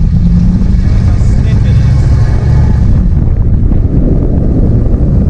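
Pickup truck's engine and exhaust droning inside the cabin while driving: a loud, steady low rumble. It holds an even pitch for the first few seconds, then turns rougher and noisier.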